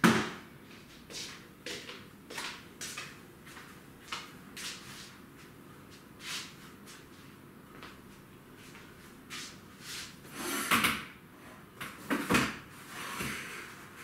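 Kitchen clatter: scattered knocks and clunks of things being handled at the counter and cupboards. The loudest comes right at the start, and a cluster of heavier ones follows about ten to thirteen seconds in.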